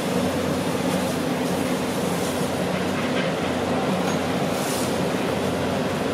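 Earth drill rig's diesel engine running steadily, a constant low drone, with street traffic hiss behind it.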